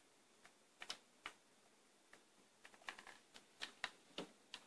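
Faint, irregular clicks and taps of a black plastic speaker housing being handled and fitted together in the hands, about a dozen in all, several bunched together in the second half.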